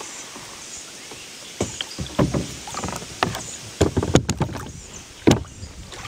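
Kayak paddle strokes: water splashing off the blades, with a few sharp knocks of the paddle, coming unevenly several times after a quiet first second or so. Low wind noise runs underneath.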